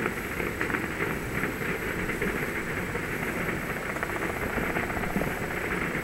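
Distant fireworks display heard as a steady, dense crackle over a low rumble.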